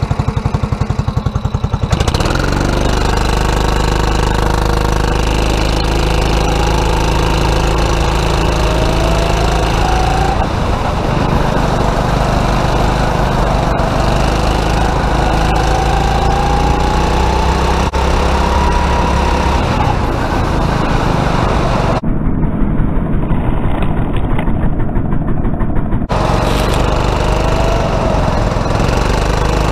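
Onboard sound of a 270cc single-cylinder four-stroke rental kart engine running hard, its pitch rising on the straights and falling back into the corners. For a few seconds near the end the sound turns dull and muffled.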